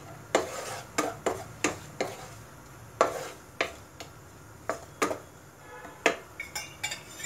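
Wooden slotted spatula stirring garlic, ginger and chillies in oil around a nonstick wok, with irregular sharp taps and scrapes of wood on the pan about once or twice a second.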